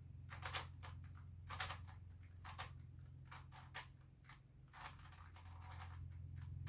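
Plastic pieces of a Grilles II twisty-puzzle cube clacking as its layers are turned by hand: short, sharp clicks about once a second, some in quick pairs.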